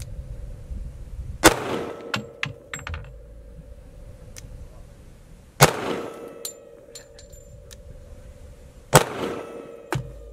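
Three single shots from a .45 ACP semi-automatic pistol, fired slowly about three to four seconds apart, each a sharp crack with a ringing echo under the range shelter. Lighter clicks and knocks come between the shots, and a faint steady hum runs underneath.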